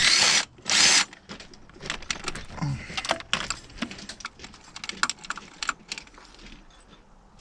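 Two short, loud bursts of noise in the first second, then a run of light metallic clinks and rattles from tools and engine parts being handled.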